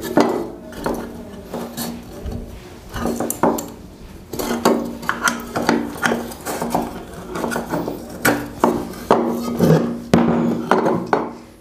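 Irregular knocks, clicks and clatter of a sheet-metal motor end cover being handled on a wooden table as a capacitor is pressed into its clamp inside the cover, over a steady low hum.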